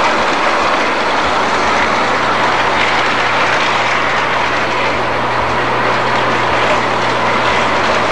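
Model trains running on a layout: a steady rolling noise of motors and wheels on the track, with a constant low hum.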